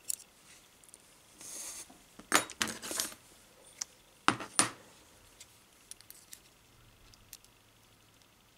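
Small metallic clicks and clinks of a disassembled Abus five-pin lock cylinder being handled while a steel pick probes its pin chamber to work a long spring out. A short rustle, then a few sharp clicks, and two more a little later, fading to faint ticks.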